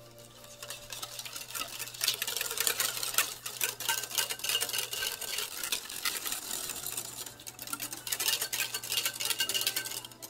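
Wire balloon whisk beating thick egg-yolk batter in a glass bowl: a rapid run of scraping, clicking strokes of the wires against the glass, easing off briefly in the middle.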